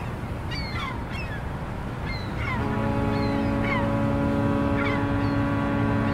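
A long, steady horn blast begins about two and a half seconds in and holds, over a steady low rumble. Short, downward-sliding chirps repeat about once a second throughout.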